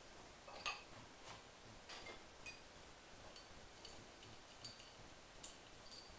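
Faint, irregular light clicks and ticks from hand work on an outboard motor's flywheel with a flywheel puller fitted, spaced about half a second to a second apart, the sharpest about a second in.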